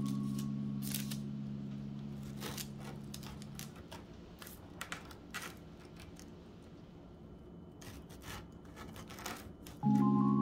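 Knife cutting through a once-baked biscotti log: scattered crisp crunches and clicks as the blade saws through the crust and meets the board. A held music chord fades out over the first few seconds, and music starts again near the end.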